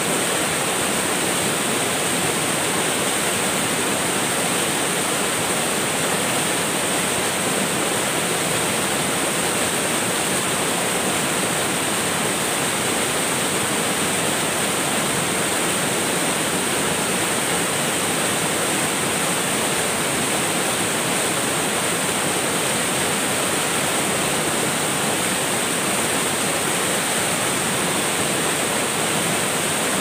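Waterfall cascading over boulders: a steady, unbroken rush of white water.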